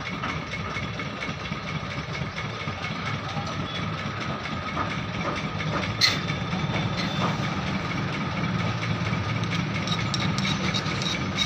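An engine idles steadily, a continuous low hum with a faint steady whine above it. There is one sharp click about six seconds in, and a few light scraping strokes near the end as a metal file works a small aluminium fitting.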